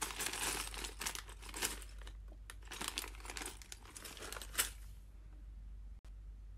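A clear plastic bag of small toy building-block pieces crinkling as it is handled, with a sharp tap about four and a half seconds in as it is set down, then quieter.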